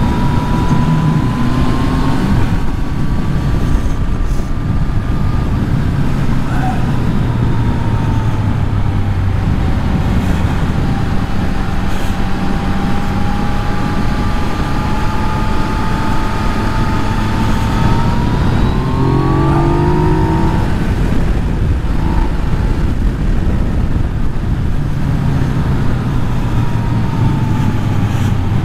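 Yamaha MT-09's inline three-cylinder engine running under way, its note rising and falling with the throttle, over steady wind rush on the on-bike microphone.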